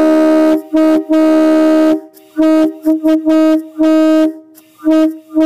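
Locomotive air horns (train horns) on compressed air sounding a steady multi-note chord in a string of blasts: one long blast, then about eight shorter ones of varying length. They are loud enough to overload the recording.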